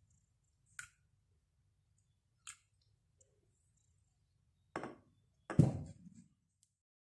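A few light clicks, then two knocks about five seconds in, the second a heavier thud and the loudest: a filled ceramic bowl being set down on a kitchen countertop.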